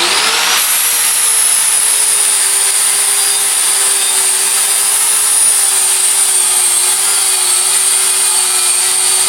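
An electric power tool running steadily under load, with a steady hum and a high whine over a rushing noise. Its hum drops a little in pitch in the first second, then holds.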